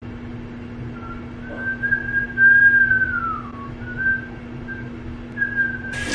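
A person whistling a few notes, with a long held note that slides down partway through and shorter notes after it, over a steady low hum.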